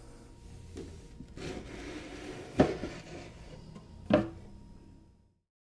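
Handling noise from a wooden-cased stereo receiver being moved about: a low rubbing with two sharp knocks, about two and a half and four seconds in, then the sound cuts off.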